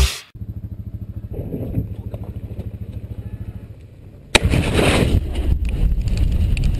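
A low, fast, even putter like an idling engine. About four seconds in comes a sudden loud blast as a fireball goes up, followed by a loud rushing noise with scattered crackles.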